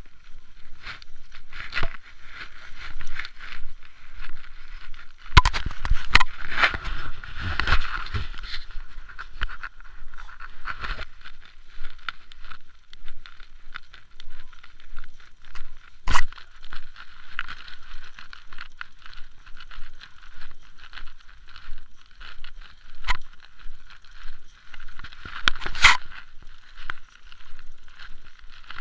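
Mountain bike rolling over grassy ground, heard through a handlebar-mounted camera: steady rattling and tyre noise, with a cluster of heavier knocks about five to nine seconds in and a few sharp clicks later.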